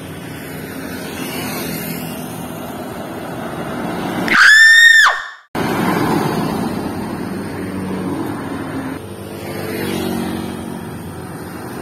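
Road traffic passing close by: truck and motorcycle engines and tyres on asphalt, one engine's note gliding as it goes past near the end. About four seconds in, a loud, high-pitched hoot lasting about a second rises and falls at its ends and drowns out the traffic.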